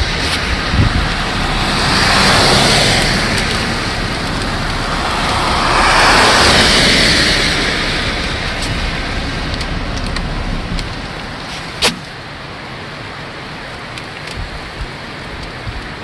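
Winter storm wind with precipitation: a rushing hiss swells twice and dies down, leaving a softer steady patter with light ticks and one sharp click near the end.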